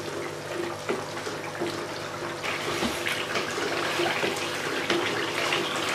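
Beef karahi gravy bubbling and sizzling in a metal wok as it is fried down, while a wooden spatula stirs and scrapes through the meat. The sizzle grows brighter about two and a half seconds in.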